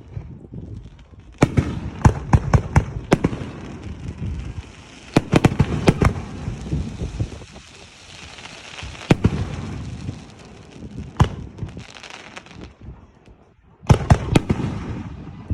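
Fireworks going off: clusters of sharp bangs with crackling in between, a short lull, then a last rapid run of bangs near the end.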